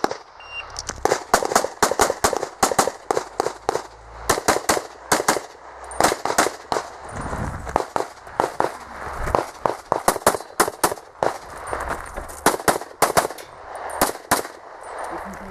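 A range officer's shot timer gives a short beep about half a second in, then a pistol fires many rapid shots in quick strings with short pauses between them as the shooter runs an IPSC stage.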